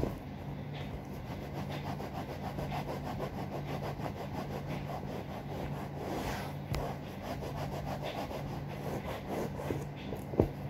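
A cloth scrubbing a sofa's upholstery with toothpaste in quick, repeated back-and-forth strokes. A single sharp knock comes near the end.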